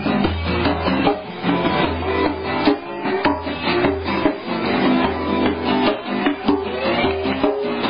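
Acoustic guitars strummed together in a steady, driving rhythm.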